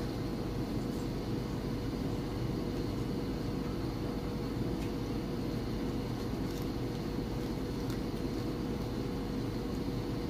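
Steady machine hum with a constant low tone over an even rumble, unchanging throughout.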